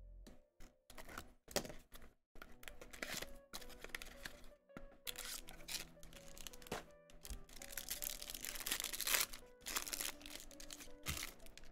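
Trading-card packaging being torn open and crinkled by hand: a few separate clicks, then a long run of rips and crackles, loudest about nine seconds in.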